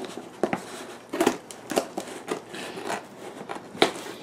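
Scissors cutting through packing tape and clear plastic wrap on a cardboard box: a series of sharp snips and crackles, roughly one every half second, the loudest near the end.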